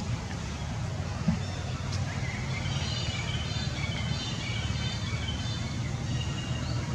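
Outdoor ambience: a steady low rumble, one sharp tap about a second in, and thin high chirping calls from about two seconds on.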